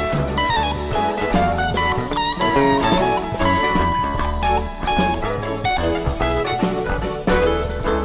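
Live band playing: an electric guitar lead picks a fast, winding run of single notes over bass and drums.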